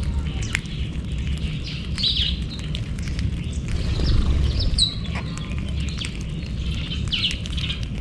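A feeding flock of weaver birds chirping, with many short, scattered high calls and quick sliding notes overlapping one another. A steady low rumble runs underneath.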